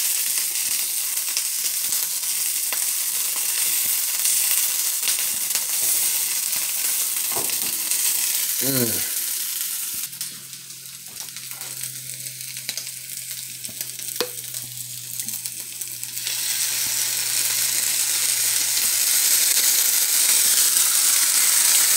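Sliced steak and green peppers sizzling in a hot frying pan, stirred with a wooden spatula. The sizzle drops off for several seconds in the middle, leaving a low hum, then comes back up.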